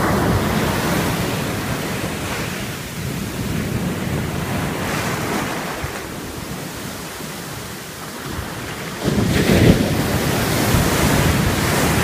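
Ocean surf breaking and washing up a beach, a continuous rushing wash with a louder surge about nine seconds in.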